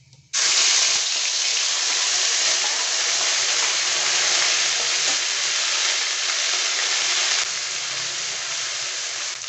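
Ginger, green chilli and cumin paste sizzling loudly as it hits hot oil and ghee in a kadai, starting suddenly a moment in. The sizzle eases a little near the end as the paste is stirred with a metal spatula.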